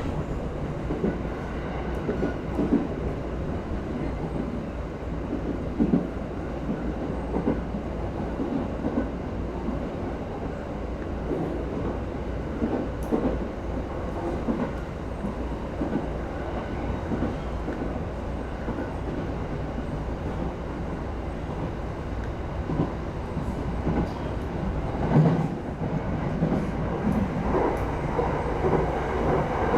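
E217 series electric multiple unit running along the line, heard from inside the train: a steady rumble of wheels on rails with scattered knocks as the wheels pass over rail joints.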